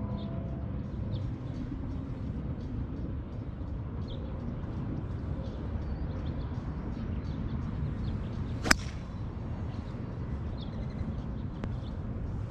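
Golf tee shot: a single sharp crack of the club head striking the teed ball, with a brief ring, about two-thirds of the way in, over steady low background noise.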